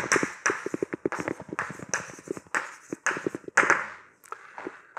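Chalk writing on a blackboard: a quick run of sharp taps and short scratchy strokes as a heading is written out letter by letter.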